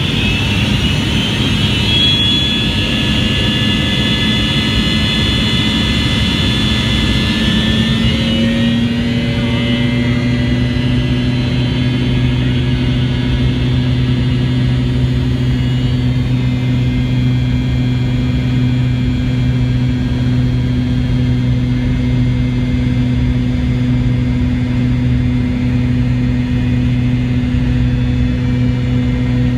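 McDonnell Douglas MD-88's rear-mounted Pratt & Whitney JT8D turbofans running at takeoff thrust, heard from the cabin: a loud roar with high whining tones. About eight seconds in the engine pitch steps up, then holds steady.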